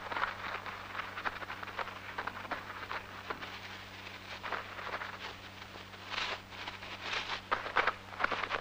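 Dry grass rustling and crackling in irregular bursts as a red squirrel gathers it in its mouth, louder from about six seconds in, over a steady low hum.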